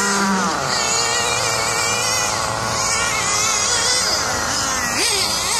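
1/8-scale RC race cars' motors whining as they lap the track, several high pitches rising and falling, one dropping away about half a second in.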